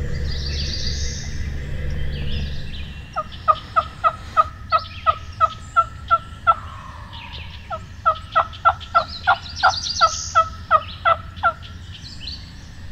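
Woodhaven Jackhammer diaphragm turkey call blown as hen yelps: two fast runs of about a dozen yelps each, roughly three to four a second, each note breaking from high to low. Calling to a gobbler.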